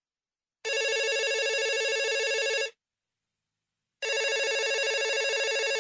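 A telephone ringing twice, each ring a fast warbling trill of about two seconds. The rings are about a second and a half apart, and the call goes unanswered to voicemail.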